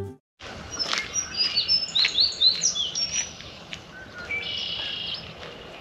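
Songbirds singing: a flurry of short, high chirps and gliding whistles, then a trill of about a second near the end.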